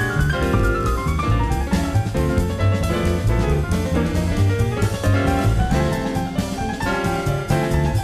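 Live jazz-fusion band playing, with keyboard runs over a drum kit and bass, recorded off an FM radio broadcast onto cassette tape.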